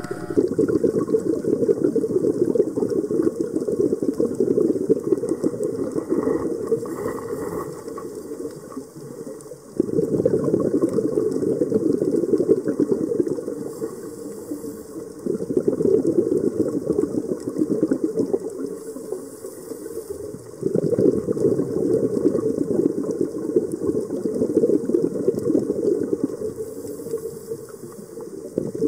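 Scuba diver's exhaled air bubbling out of the regulator underwater: a low, loud bubbling that comes in four long bursts, each starting suddenly and fading away, one per breath.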